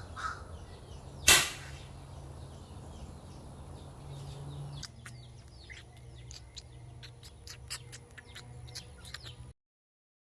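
A crow cawing at the very start, then a single loud gunshot a little over a second in, fired at the crow. Later come faint bird chirps and a few light clicks.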